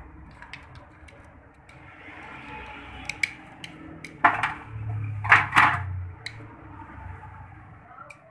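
Metal clicks and clinks of a screwdriver and a Honda CD 70 clutch assembly being handled against a steel tray, the loudest knocks about four and five and a half seconds in.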